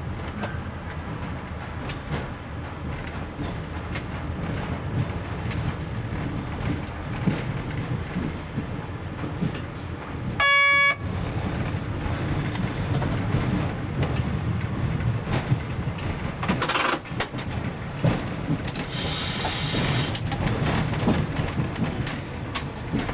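Ferkeltaxe railbus (DR class 771/772) running along the track with a steady low drone. About ten seconds in it gives a short, loud horn blast. A brief hiss follows near the end.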